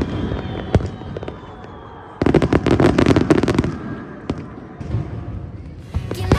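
Fireworks going off: scattered bangs, then a dense run of crackling starting about two seconds in and lasting over a second, followed by a few more pops.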